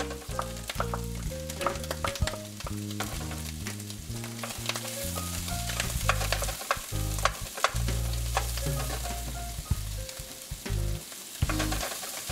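Crumbled Italian sausage and diced onion sizzling in a frying pan, stirred with a wooden spoon that clicks and scrapes against the pan many times. Background music with held low notes plays underneath.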